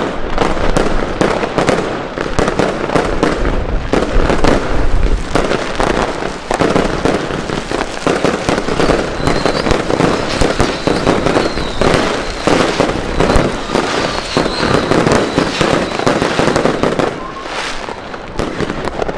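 Fireworks going off in a dense, continuous barrage: many overlapping bangs of bursting aerial shells with crackling stars, without a break.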